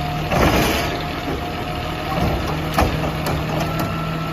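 Truck engine idling with a steady hum, with a few sharp knocks about half a second in and near three seconds in.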